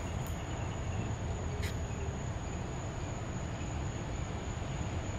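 Crickets trilling, one steady, unbroken high note over a low, steady background rumble, with a couple of faint clicks.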